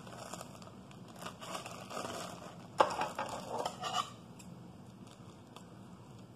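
A plastic zip-top bag of icing being handled, crinkling and rustling, with one sharp click a little before three seconds in; the rustling stops about four seconds in.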